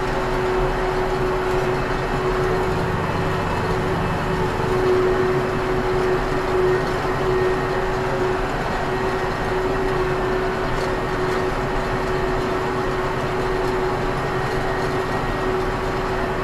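Ursus C-392 tractor's diesel engine running steadily under load while pulling a five-furrow plough, heard from inside the cab, with a steady whining tone through it.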